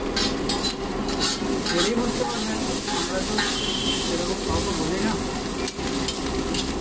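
Chowmein noodles sizzling on a large flat iron griddle as they are stirred and tossed with two metal spatulas, the spatulas scraping and clicking against the iron.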